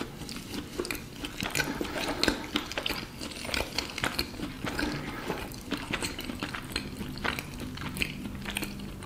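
A person chewing a bite of fried empanadilla with flaky pastry crust: a run of irregular small crunches and wet mouth clicks close to the microphone.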